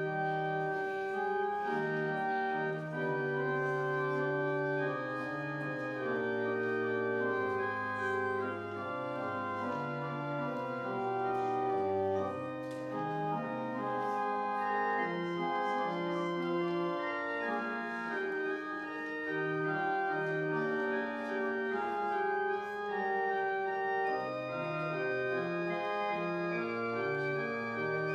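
Organ playing a slow piece of sustained chords, several notes held at once and changing about every second.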